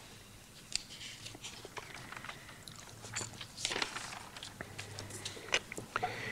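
Quiet room tone: faint scattered clicks and short rustles over a low steady hum.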